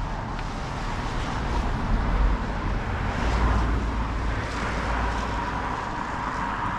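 A car driving along the road: steady tyre and engine noise over a low rumble that swells in the middle and eases toward the end.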